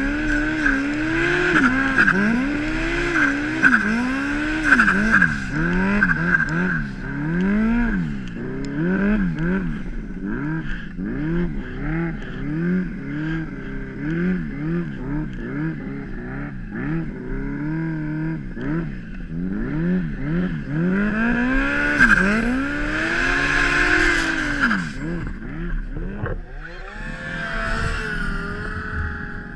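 Turbocharged 2006 Yamaha Apex snowmobile's four-stroke four-cylinder engine revving up and down again and again, roughly once a second, as the sled plows through deep powder. Near the end the revs fall away and the engine settles to a lower, steady run as the sled stops, stuck nose-down in the snow.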